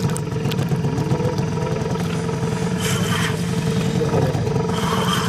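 A boat's engine running steadily at a low hum. Two short bursts of hiss break over it, about halfway through and near the end.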